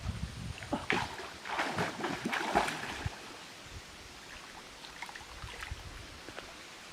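Water splashing and sloshing in a run of irregular splashes over the first three seconds, then dying down to a faint, even hiss.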